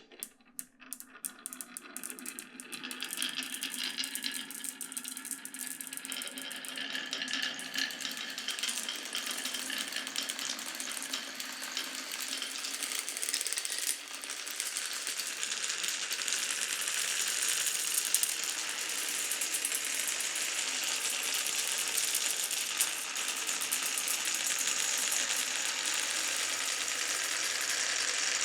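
Glass marbles clicking and rolling through a wooden marble run: separate clicks at first, thickening within a few seconds into a dense, continuous clatter of many marbles on the track.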